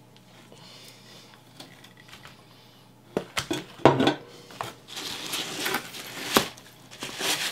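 Cardboard box and paper packing being rummaged through and rustling, with a few sharp knocks and clinks starting about three seconds in.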